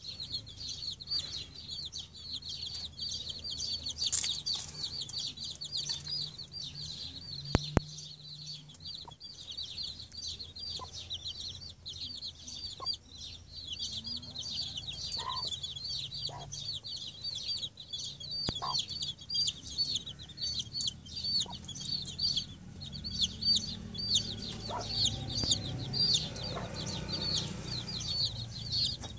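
Baby chicks peeping continuously, a rapid run of short high peeps several a second, while they forage. A single sharp click about eight seconds in.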